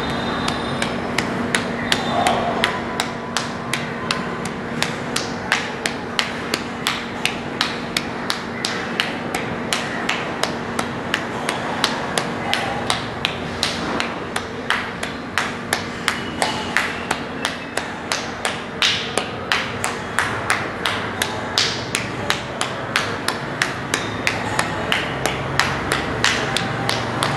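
Paida slapping on a bald scalp: an open palm patting the top of the head in an even run of light slaps, about three a second.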